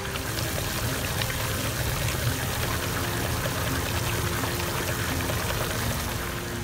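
Stand mixer running steadily, its paddle beating a wet filling of chopped scallops in a steel bowl.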